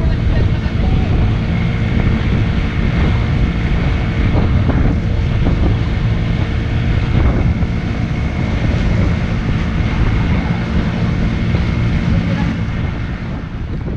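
Small boat's engine running steadily at speed, with water rushing and splashing past the hull and wind buffeting the microphone.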